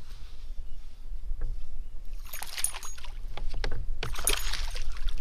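Hooked largemouth bass splashing and thrashing at the surface beside a kayak, two bouts of splashing about two and four seconds in.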